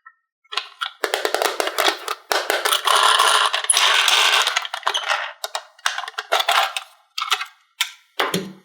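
Toys and their plastic parts clicking and rattling as they are handled. The rattle is densest from about one to five seconds in, then comes in short separate bursts.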